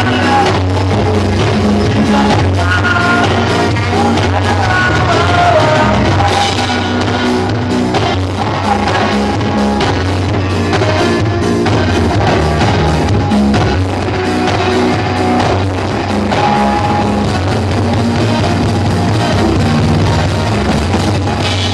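Live band playing an upbeat pop-rock song through a PA, with drums, bass, electric guitar and singing.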